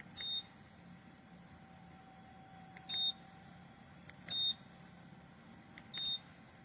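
WINHL electric space heater's control beeping as its settings are changed: four short, high beeps, each just after a button click, over the faint steady hum of the heater running.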